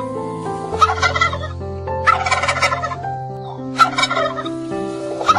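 Domestic fowl calling, four loud rapid rattling calls about a second and a half apart, over steady held background notes.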